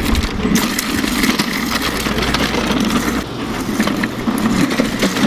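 An old office chair pushed along on its casters over rough pavement, rolling in a continuous rumble with many small clicks.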